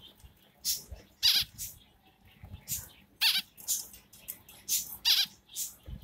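Short, high-pitched squeaky chirps from small cage birds, a Bengalese finch and a budgie chick, about ten irregular calls, some of them raspy.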